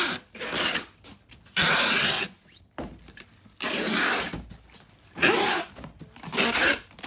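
Repeated rasping, rubbing strokes, about six of them, each under a second long, at uneven intervals.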